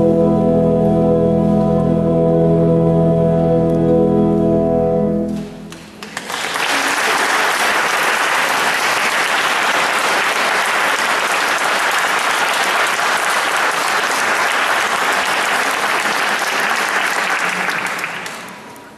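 Choir with keyboard accompaniment holding a final sustained chord, released about five and a half seconds in. Audience applause follows, steady, then fading away near the end.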